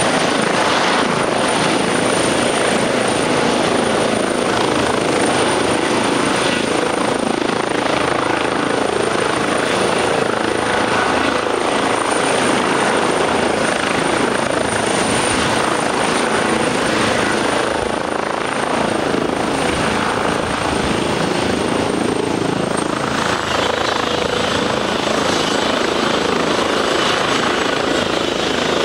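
Airbus H135 helicopter running close by: its twin turbines and rotor make a steady, loud noise with a thin high turbine whine on top. About three-quarters of the way through, the whine drops slightly in pitch.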